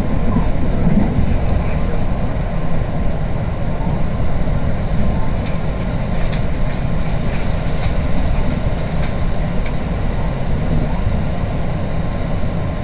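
Steady running rumble of a JR Biwako Line electric commuter train heard from inside the passenger car while it travels at speed between stations, with a few faint clicks scattered through it.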